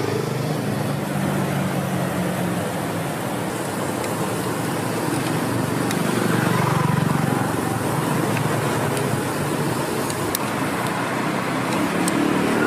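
Roadside street ambience: steady traffic noise with faint background voices. A few light clicks of metal tongs on the grill come near the end.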